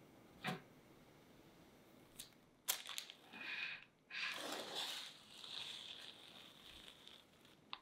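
A few light knocks as a metal cake pan is lifted off and set down, then parchment paper peeled from the side of a baked sponge cake: a crackly tearing rustle that lasts a few seconds.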